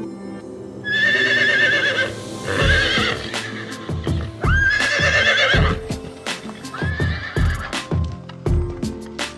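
Horse neighing four times, each call long and quavering, with low thuds between them. Background music plays steady tones underneath.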